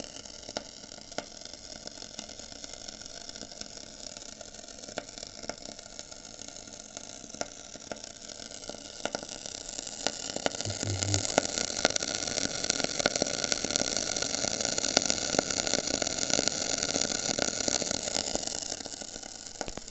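Koln 80-litre electric storage water heater with dry heating elements, heating and making a constant sizzling, crackling hiss full of sharp clicks, like water on a hot oiled pan. It grows louder about halfway through. The owner puts the crackling down most likely to a consumed magnesium anode, with deposits in the tank.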